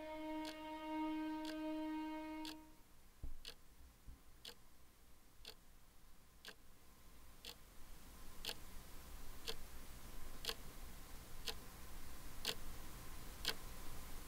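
A held musical note fades out after about two and a half seconds, leaving a clock ticking faintly and evenly, about once a second.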